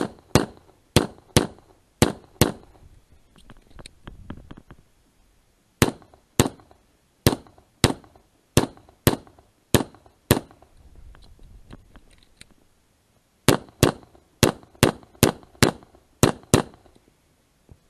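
Pistol shots fired in three fast strings, about two shots a second, with pauses of a few seconds between the strings.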